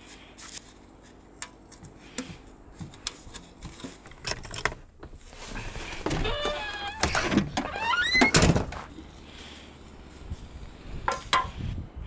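Clicks and taps from a metal can lid and small objects being handled. About six seconds in, a loud squeaky hinge creaks, first falling and then rising sharply in pitch, as a vehicle door is worked. A couple of knocks follow near the end.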